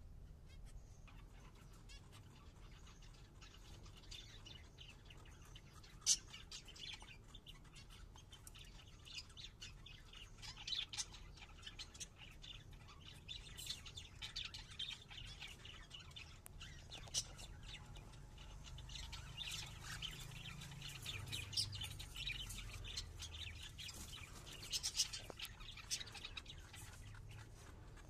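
Cockatiels chirping in many short, scattered calls, with a few sharp clicks among them.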